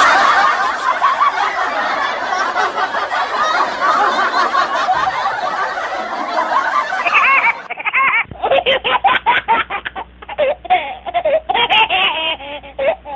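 Loud laughter from several overlapping voices. About eight seconds in, the sound cuts to duller, choppier bursts of laughing over a low hum.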